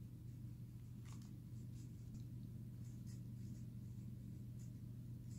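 Faint rustling and light scratches of a picture book's paper pages being handled and turned, a handful of short brushes, over a steady low hum.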